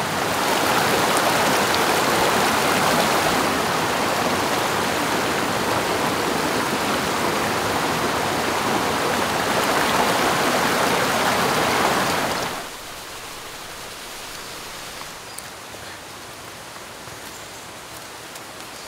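Shallow rocky stream rushing over stones, loud and steady. About twelve and a half seconds in it cuts off abruptly to a much fainter, steady hiss of water in the distance.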